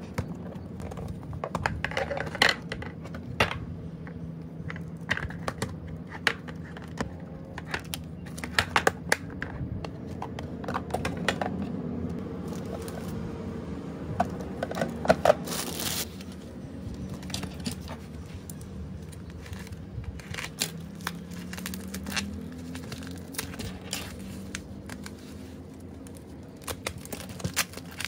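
Plastic packaging crinkling and rustling as photocards, clear card holders and holographic sleeves are handled, with scattered sharp clicks and taps of cards on a desk. About halfway through there is a brief louder burst of rustling, like plastic being torn or pulled open.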